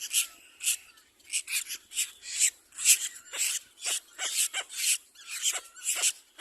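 Little black cormorant chicks begging for food: harsh, raspy calls repeated rapidly, two or three a second.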